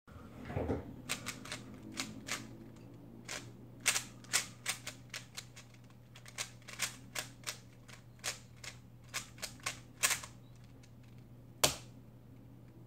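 YJ MoYu DianMa 3x3 speedcube being turned fast: irregular sharp plastic clacks of the layers, some in quick runs, with a louder single clack near the end.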